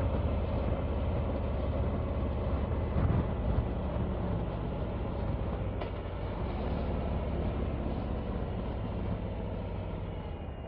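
Harley-Davidson touring motorcycle's V-twin engine running steadily at road speed under a constant rush of wind and road noise, easing off slightly near the end.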